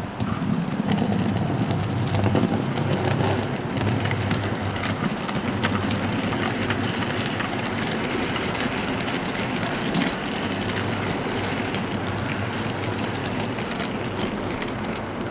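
Model GWR 16XX pannier tank locomotive running with a train of four-wheeled goods wagons: a steady low motor hum under a dense patter of wheels clicking over the track, loudest in the first few seconds as the locomotive passes closest.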